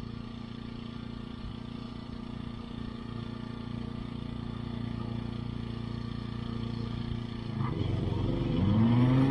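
A small engine runs steadily at low speed. About eight seconds in there is a click, and the walk-behind lawn mower's engine climbs quickly in pitch and settles into a louder, steady run at working speed.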